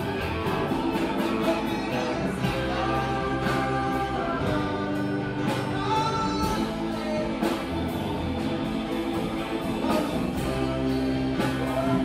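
Live band playing a rock song: guitar over a steady drum beat.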